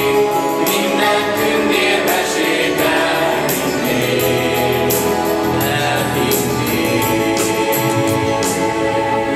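Mixed youth choir of boys' and girls' voices singing in held chords, with front singers on microphones.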